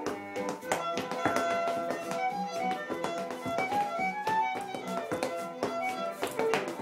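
Texas-style fiddle music: a fiddle plays a quick melody over a steady, rhythmic accompaniment.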